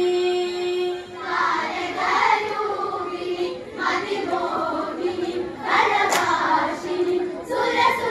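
Women's group singing an Onamkali folk song in chorus: a long held note at the start, then the whole group singing the next line, with a few handclaps.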